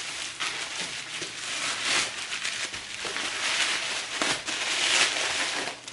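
Tissue packing paper being handled and pulled out of a box, rustling and crinkling with many small crackles.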